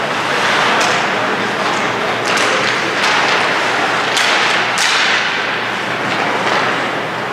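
Ice hockey play heard over a steady arena hiss: several sharp scrapes and clacks of skates and sticks on the ice, about half a dozen spread through the first five seconds.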